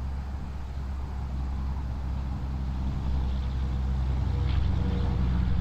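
Wind rumbling on the microphone, with a road vehicle's engine running nearby that grows louder through the second half.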